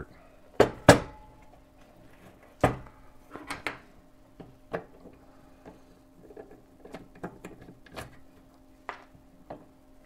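Knocks and clicks of a metal speaker-selector case being handled and turned over onto a workbench, with two sharp knocks about a second in. Lighter taps and clicks follow as hands work on its underside, over a faint steady hum.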